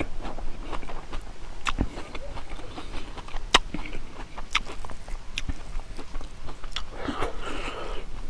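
Close-miked chewing and lip smacking of a man eating rice and pig leg, heard as irregular short clicks, with a denser stretch of mouth noise about seven seconds in.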